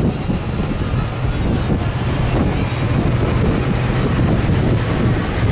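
Tour boat's engines running steadily under way, a low even hum, with wind buffeting the microphone.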